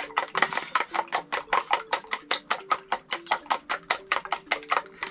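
Two eggs beaten by hand in a small bowl, the utensil clicking against the bowl in a fast, even rhythm of about six strokes a second.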